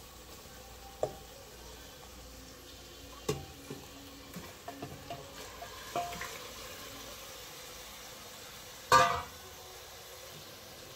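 Marinated chicken pieces dropped into spiced masala in an aluminium pressure cooker, with a faint steady sizzle underneath, a few soft knocks and small clinks, and one loud, ringing metal clank about nine seconds in.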